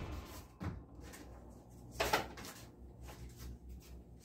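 A few soft knocks and bumps, the loudest about two seconds in, over a low steady hum.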